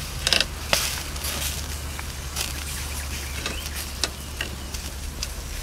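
Pork belly sizzling on a wire grill over an open fire, with a steady hiss and several sharp crackles and pops from the fire and the cooking fat.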